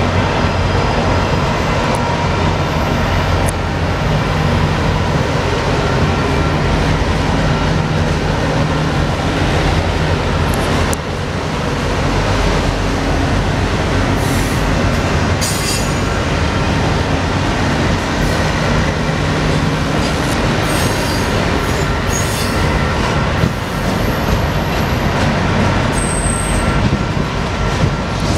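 Union Pacific double-stack intermodal freight cars rolling past: a steady loud rumble and rattle of steel wheels on rail, with brief high wheel squeals about halfway through and a thin squeal near the end.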